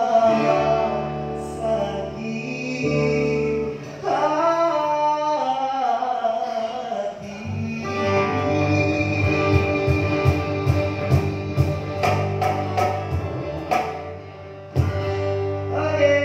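Live acoustic band: a man singing a pop ballad into a microphone over acoustic guitar. About halfway through, a run of cajon strikes joins in over a steady low line.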